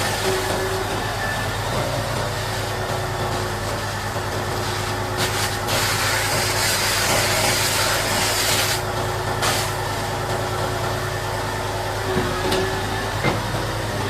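Heavy diesel engine idling steadily. About five seconds in, a loud hiss starts, lasts about three and a half seconds and then cuts off, followed by a brief second hiss a moment later.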